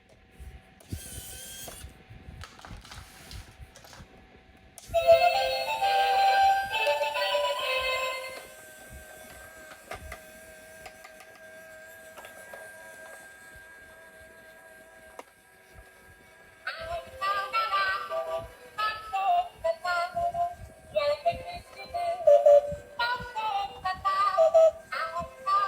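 A few handling clicks, then an electronic song with a synthesized singing voice starting about five seconds in. It drops to a quieter held tone for several seconds and comes back in short sung phrases near the end.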